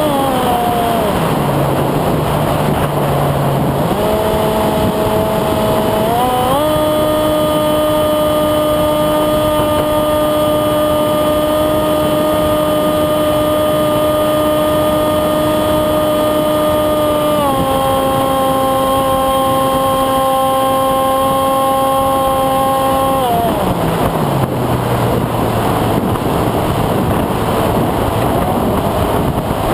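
Electric motor and propeller of a Windrider Ele-Bee2 RC flying wing, heard from its onboard camera as a steady whine over rushing wind. The pitch follows the throttle: it drops low early on, climbs back in two steps, holds steady for a long stretch, dips a little, then falls away to a low drone near the end.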